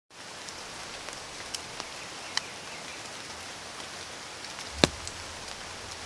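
Rain falling on dense forest foliage: a steady hiss with scattered drops tapping on leaves, and one sharper, louder tap a little before five seconds in.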